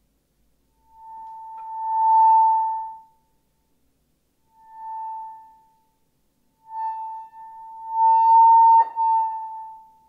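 A single high sustained tone, held at one unchanging pitch, sounds three times in long notes that each swell and fade, the last one longest. A short knock sounds during the last note.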